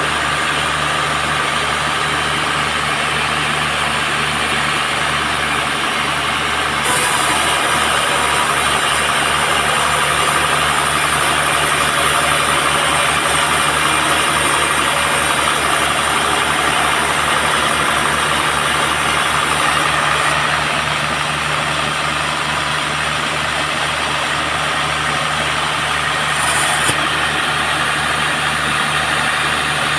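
Band sawmill sawing a teak log: a steady machine drone with a low hum. It grows louder and hissier from about seven seconds in until about twenty seconds, with another short hiss near the end.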